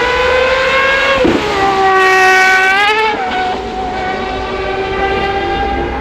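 A supercar engine revving high, its pitch climbing and then dropping sharply about a second in as it shifts up a gear, then holding a steady note.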